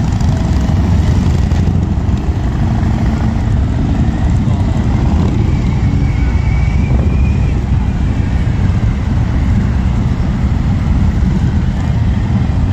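Several large V-twin cruiser and touring motorcycles pulling away one after another at low revs, making a steady, deep engine rumble.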